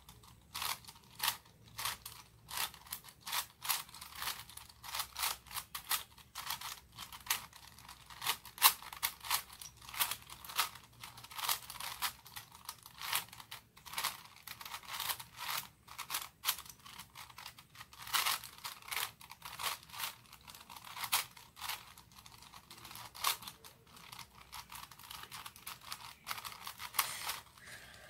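Budget plastic 4x4 Rubik's cube being scrambled by hand: a rapid, irregular run of plastic clicks and clacks as its layers are twisted, several a second.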